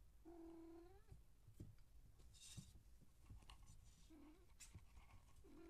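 Siamese cat meowing: one longer call just after the start, then two shorter ones, around four seconds in and at the end. Faint ticks and a brief rustle in between.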